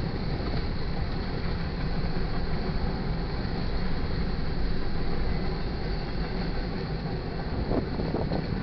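Freight cars of a manifest train rolling past a grade crossing: a steady rumble and clatter of wheels on rail, with a few brief higher-pitched sounds near the end.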